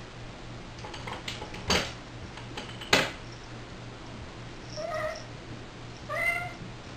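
Domestic cats: two sharp knocks with a few lighter clicks, then a cat meows twice in short calls about a second apart, the second louder.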